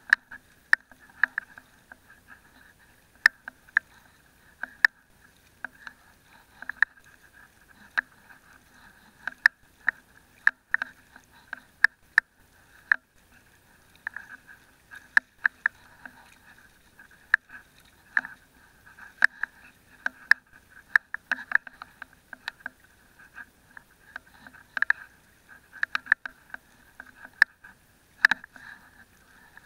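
A fishing net being hauled in and picked clear by hand on a boat: irregular sharp clicks and taps, several a second, over a steady hum.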